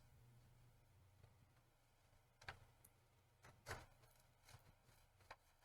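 Near silence with a few faint, sparse clicks and taps of a spudger prying at a laptop's plastic case.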